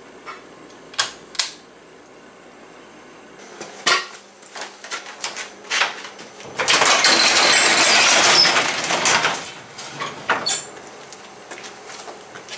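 A couple of sharp clicks from a pull-chain light fixture, scattered knocks, then a metal sectional garage door rattling loudly for about three seconds as it is raised.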